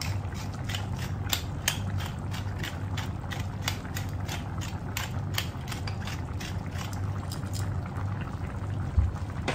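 Hand-turned pepper mill grinding black pepper, a quick run of ratchety clicks that thins out and stops near the end. A single dull thump follows just before the end.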